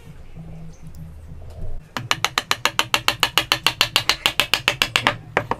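A rapid, even train of sharp mechanical clicks, about ten a second, starting about two seconds in and running for about three seconds, then a couple of single clicks near the end, like a ratcheting mechanism.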